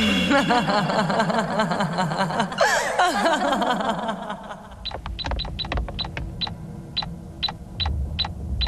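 A woman's villainous laugh over dramatic music. From about five seconds in, a run of short high electronic beeps, about two a second, from a handheld computer being operated.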